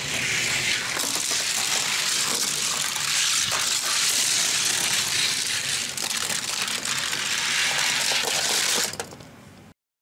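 Two Hot Wheels die-cast cars, a Bone Shaker and a T-Bird Stocker, rolling fast down a plastic gravity-race track. Their small wheels make a steady hissing rattle on the track, with many little clicks. The rattle falls away near the end.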